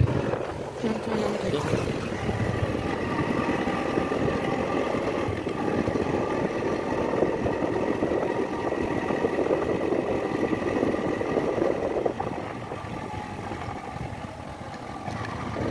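Motorcycle engine running as the bike is ridden along a road, with a steady rush of road and wind noise. It eases off and gets quieter about twelve seconds in, then picks up again near the end.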